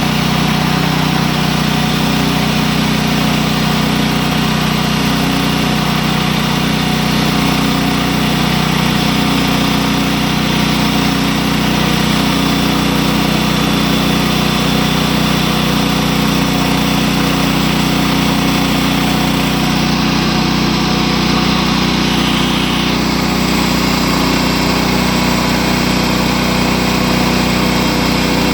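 Small gasoline engine of a Woodland Mills HM130 portable band sawmill running steadily as the band blade saws a board; the sound shifts slightly about three-quarters of the way through.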